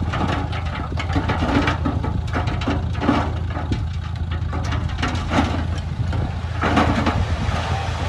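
Heavy diesel engine of earthmoving machinery running with a steady low drone, with irregular clattering and crunching over it.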